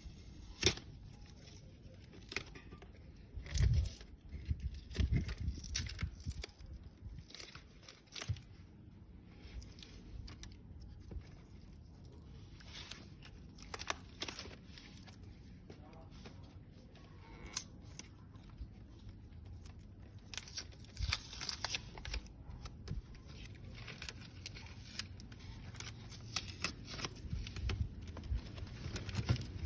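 Product packaging being handled and torn open: irregular tearing, crinkling and clicking, with a few louder knocks in the first few seconds.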